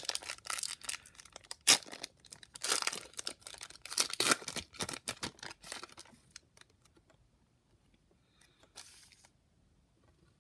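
A trading card pack's wrapper being torn open and crinkled by hand, with a sharp rip about two seconds in. The crinkling stops about six seconds in, followed by one brief rustle near the end.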